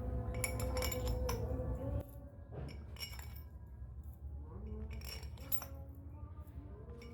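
Car air-conditioning compressor running with a steady hum and a rough, repeated metallic clinking, the rattling noise ('ngorok') of a worn compressor. The hum drops noticeably about two seconds in while the clinks go on.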